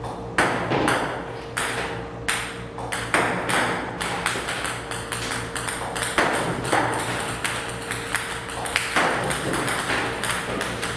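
Ping-pong balls fired by a table tennis ball robot, clicking sharply on the table about two or three times a second in an irregular run, over a steady hum.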